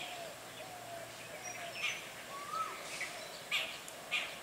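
Birds chirping and calling: short sharp chirps every second or so, and a call that rises and then drops once, about halfway through, over a faint steady outdoor hiss.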